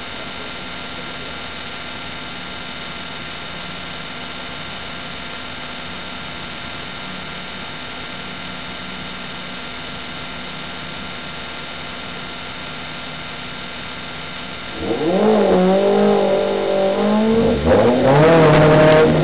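Open-wheel single-seater race car engine idling steadily at the start line. About 15 s in it revs up and down in blips, then launches hard away with the engine note climbing steeply.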